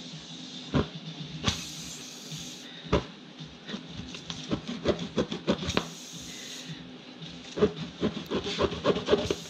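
Tire-plug reamer rasping in and out of a nail hole in a car tire's tread, rubber scraping in irregular strokes that come quicker near the end, over a steady hiss of air leaking from the punctured tire.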